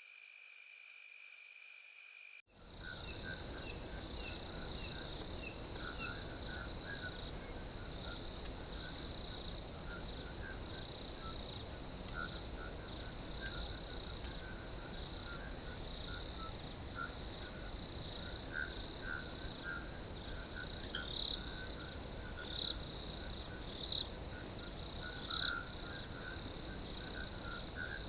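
Crickets chirping in a field: a continuous high trill with pulsing chirps and scattered lower calls. It is preceded by a steady high-pitched buzzing tone that cuts off abruptly about two seconds in.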